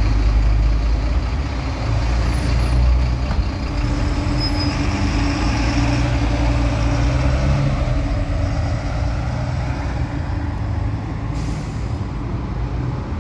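Diesel city buses running in traffic: a deep engine rumble close by drops away about two-thirds of the way through as an articulated bus drives past. A short hiss of air comes near the end.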